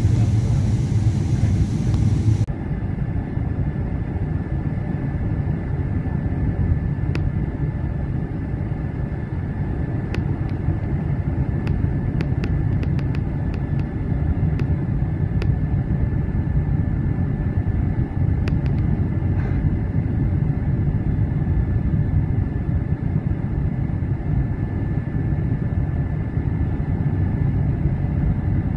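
Airliner cabin noise in flight: a steady low rumble of jet engines and rushing air heard at a window seat. About two seconds in the hiss drops away abruptly, leaving the rumble with a thin steady whine and a few faint ticks.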